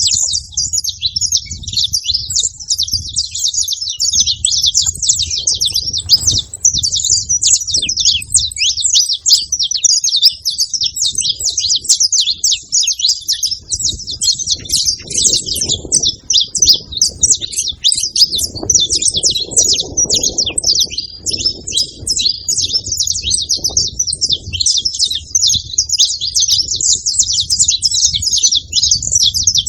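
Saffron finches chirping: a steady, unbroken stream of quick, high chirps.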